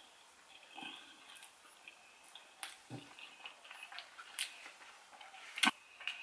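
Close-miked chewing of fish curry roti: scattered wet mouth clicks and squishes, with a sharper click near the end.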